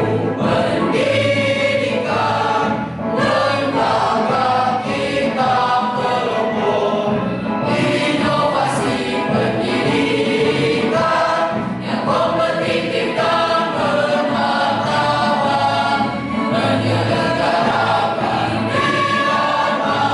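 Mixed choir singing a song in parts, with a steady low accompaniment underneath.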